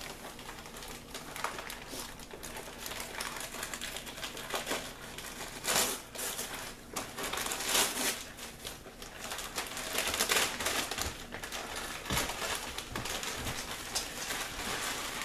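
Gift wrapping paper being torn and crumpled by hand as a present is unwrapped: irregular crackling and ripping, with louder tears a little under six, eight and ten seconds in.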